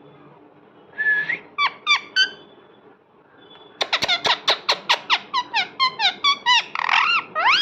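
Parrot calling: a short squawk about a second in and three sharp chirps, then from about four seconds in a rapid run of shrill screeches, mostly falling in pitch, about four a second, ending on a rising call.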